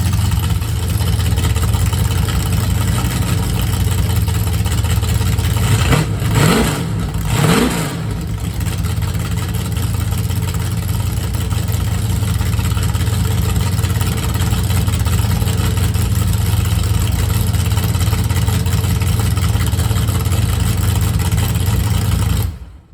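1968 Plymouth Barracuda drag car's V8 idling through extra-long open header collectors, blipped twice in quick succession about six seconds in, then settling back to a loud idle that cuts off suddenly near the end.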